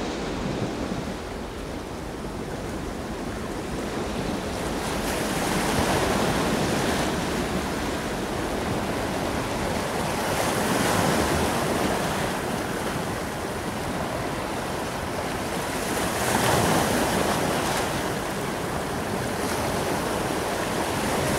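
Waves washing in, a steady rush of surf that swells and eases about every five seconds.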